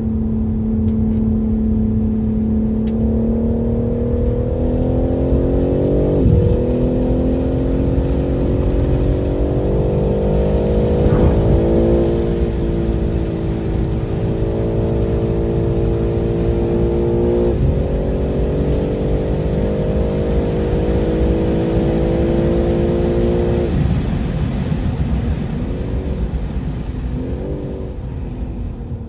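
BMW M3 Competition's twin-turbo straight-six running hard on track. The engine note climbs and falls sharply at gear changes about six and eleven seconds in, holds high, then drops off near the end with a couple of short throttle blips.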